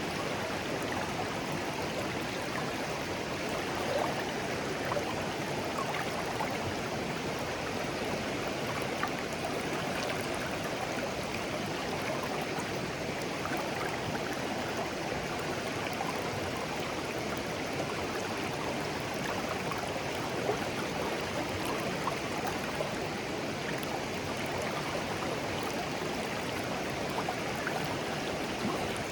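Clear, shallow stream flowing gently over stones: a steady babble of running water with small splashes and gurgles scattered through it.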